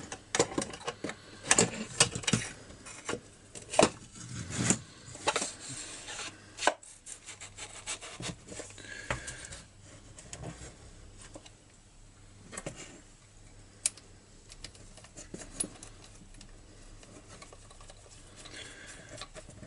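Metal clicking, knocking and scraping as a string trimmer's drive shaft is slid into its tube and the gearbox head is fitted back on by hand. Dense at first, then sparser and quieter after about seven seconds, with a few isolated clicks.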